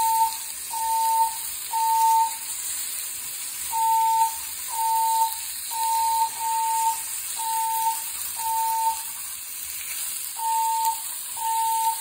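Building fire alarm sounding a steady tone of about 900 Hz in repeating sets of three half-second beeps with a longer gap between sets: the temporal-three evacuation signal, here during an alarm system test.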